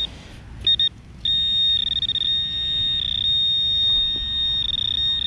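Garrett Pro-Pointer metal-detecting pinpointer sounding its high electronic tone. A few short beeps come first, then from about a second in a steady continuous tone, with a rapid pulsing warble twice, as the probe sits right on a metal target in the dug soil.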